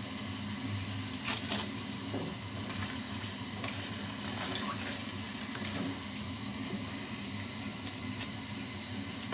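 Breaded banana pieces deep-frying in hot oil in a wok: a steady sizzle, with a few light clicks of the metal spatula against the pan.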